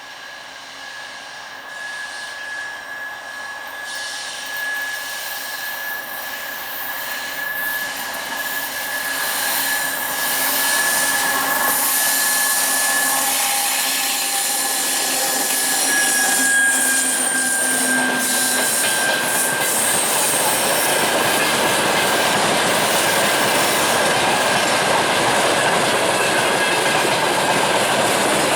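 Diesel-hauled freight train of tank wagons, led by a 2TE116 twin-unit locomotive, approaching and running past. It grows louder over the first ten seconds, then settles into the steady rolling noise of wheels on rail. A high steady squeal is heard over it until about two-thirds of the way through.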